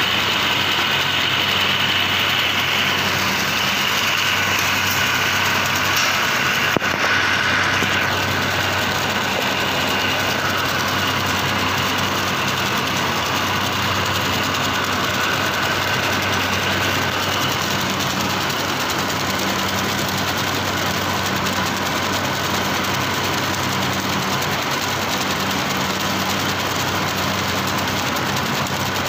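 Running paper-straw machinery giving a steady hum with a fainter high whine over it, and a single sharp click about seven seconds in.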